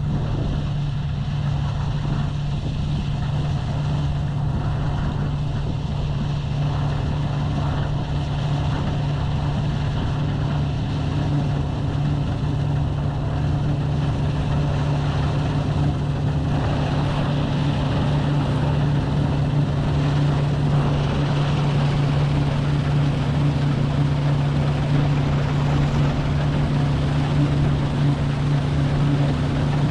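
New Holland CX8070 combine harvester running steadily while threshing barley: a constant engine drone with a steady low hum. Around halfway through it gets a little louder and hissier.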